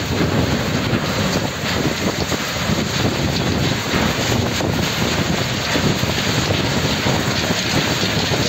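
FABO ME 1645 mobile screening plant running, a steady mechanical rumble mixed with the rattling rush of sand and gravel pouring off its discharge conveyor onto the pile.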